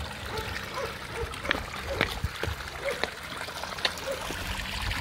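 Water running from spouts into a stone fountain trough, a steady splashing trickle, with a few sharp clicks over it.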